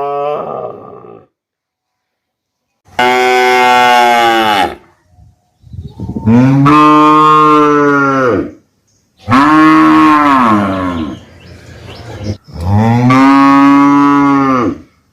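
Cattle mooing: a run of long, loud moos, each rising then falling in pitch. One call ends about a second in, then four more follow, each lasting about two seconds, with short silent gaps between them.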